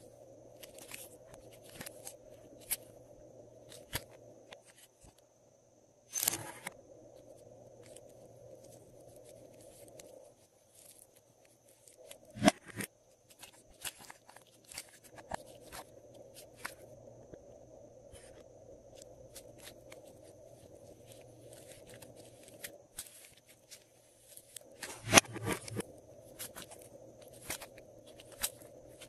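Fingers pressing and smoothing soft clay into the compartments of a clear plastic tray: sticky crackles and sharp clicks scattered throughout, the loudest bursts about six, twelve and twenty-five seconds in, over a faint steady hum.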